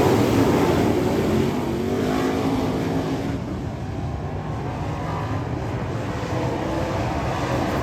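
Dirt Late Model race car's V8 engine running hard on track. It eases off about midway, as if lifting for a corner, then comes back up near the end.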